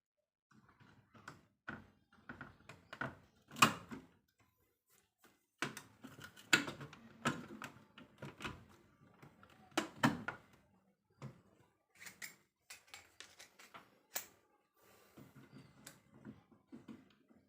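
Irregular clicks and knocks of hard parts and tools being handled, in no steady rhythm, with a few louder knocks about four, seven and ten seconds in, as the washing machine is worked on.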